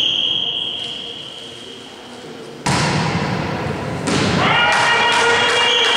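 A referee's whistle tone fades out, then the ball is struck hard close by about two and a half seconds in: the slap of a volleyball serve, ringing on in the gym. Raised voices follow near the end.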